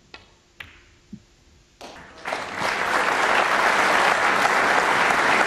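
Snooker cue tip strikes the cue ball with a sharp click, and the cue ball clicks against an object ball half a second later, followed by a duller knock. A crowd in the arena then breaks into applause, building over about half a second and holding loud through the rest.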